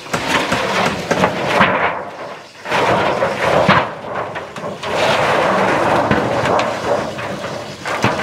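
Curved formwork being stripped off a freshly cast round concrete column: the form sheets scrape and rattle against the concrete, with scattered knocks.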